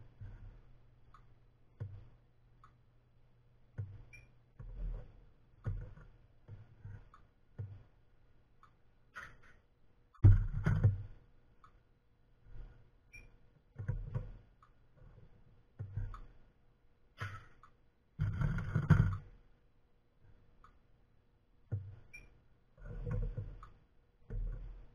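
Irregular clicks, clinks and knocks of metal handling: brass cartridge cases and metal tongs worked around a salt bath annealing pot and plate. Among them are a few heavier thuds, the loudest about ten and eighteen seconds in.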